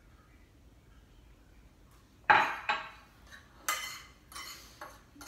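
Kitchenware clattering: one sharp clatter about two seconds in, then a utensil clinking and scraping on a plate several times.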